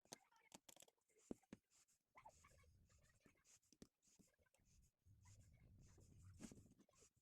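Faint hand-handling noises: scattered light clicks and scratchy rubbing, with a low rumble between about two and seven seconds in.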